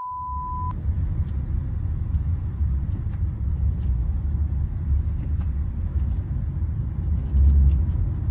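A short steady beep at the start, then the steady low rumble of road and engine noise inside a moving taxi's cabin, a little louder near the end.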